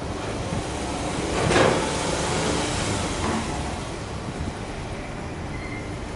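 Subaru Impreza 15S's 1.5-litre flat-four (boxer) engine, heard at the exhaust, free-revved sharply about a second and a half in, blipped again more lightly about three seconds in, then settling to a steady idle.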